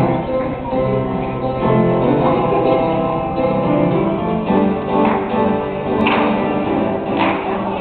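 Instrumental music opening a gospel choir number: sustained chords, joined from about five seconds in by sharp percussive hits about once a second.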